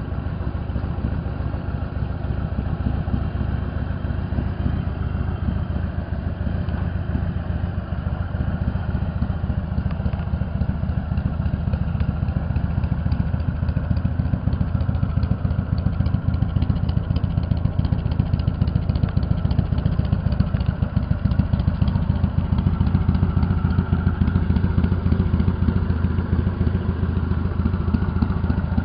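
Harley-Davidson Softail Standard's air-cooled Evolution V-twin idling steadily, with a fast, even run of exhaust pulses.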